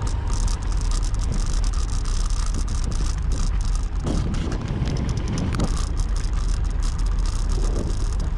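Road and wind rumble recorded by a vehicle-mounted GoPro Hero 7, with a stream of small irregular clicks ('tạch tạch') over it. The clicking comes from the camera's worn battery-door latch rattling in its housing.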